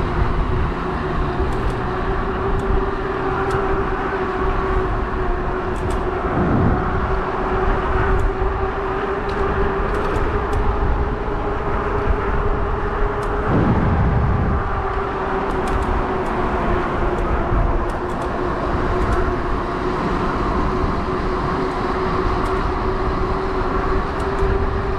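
E-bike riding at steady speed: a steady whine holds one pitch over a low rumble of wind and road noise. Two brief swells come about six and thirteen seconds in.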